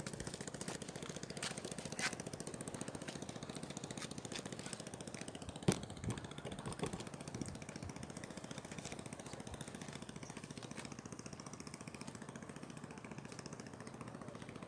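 A faint, steady engine running, with a few scattered clicks and one sharper knock about six seconds in.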